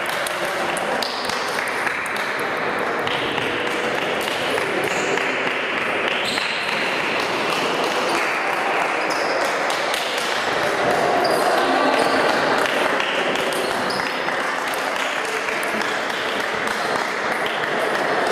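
Table tennis balls clicking off bats and tables in quick, irregular succession from several tables at once, over a steady hubbub of voices in a large hall.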